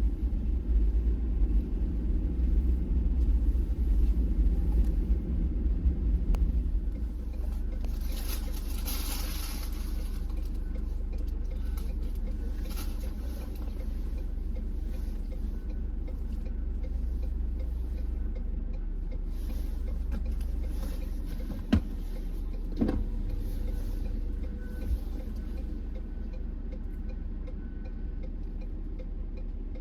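Ford vehicle driving, a steady low rumble of engine and road noise, heavier for the first several seconds. Two sharp clicks come about two-thirds of the way through.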